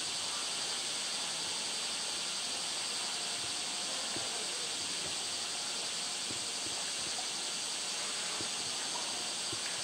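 A steady high-pitched hiss that holds at one level without a break, with a few faint low ticks beneath it.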